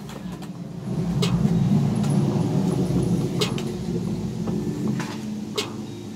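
Skateboard wheels rolling on a concrete sidewalk: a steady low rumble that builds about a second in and eases off near the end, with three sharp clacks about two seconds apart.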